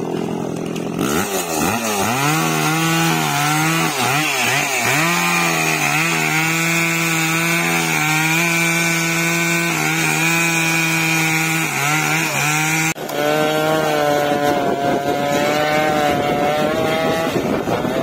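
Two-stroke chainsaw cutting into a tree trunk. The engine speed dips and recovers several times over the first few seconds, then holds steady at high revs under load. About two-thirds of the way through, the sound changes abruptly to a chainsaw engine with a wavering pitch.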